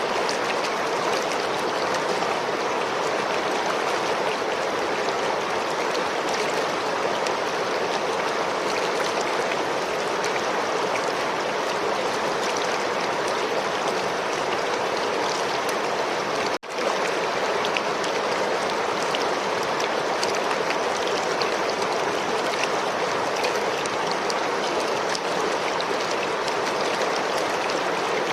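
River water running, a steady, unbroken rush; it cuts out for an instant about two-thirds of the way through.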